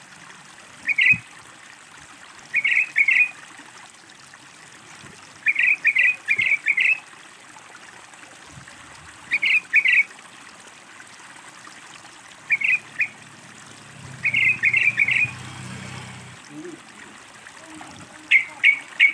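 Yellow-vented bulbul (trucukan) calling in short phrases of quick, chattering notes every couple of seconds, over a steady trickle of running water.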